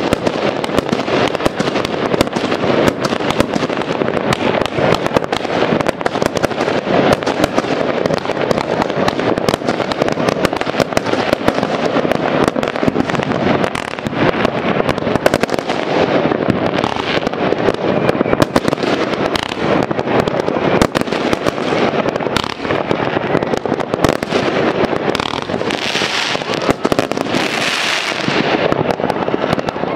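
Many fireworks going off without a break: a dense, continuous run of bangs, pops and crackles. Near the end a hissing crackle rises over the bangs.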